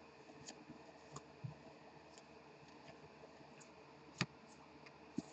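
Faint scattered clicks and ticks of baseball cards being slid and flicked one past another in the hands while leafing through a stack, with one sharper click about four seconds in.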